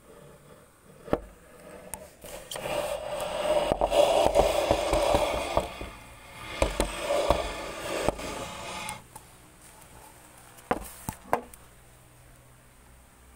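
A sharp knock, then about six seconds of loud rubbing and scraping with knocks mixed in, and two more knocks near the end.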